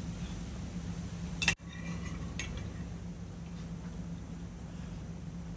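Light clinks of cutlery against dishes over a steady low hum, with one sharp click about a second and a half in.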